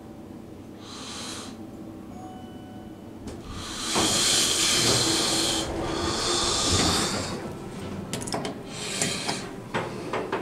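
Elevator hall doors sliding open with a loud rushing hiss over a low motor hum, about four seconds in. Then a few seconds of clicks and knocks as someone steps across the threshold into the cab.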